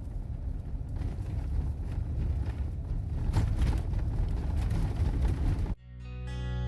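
Road and engine rumble inside a moving vehicle's cabin, steady and low, with faint ticks and knocks. It cuts off abruptly near the end as strummed acoustic guitar music fades in.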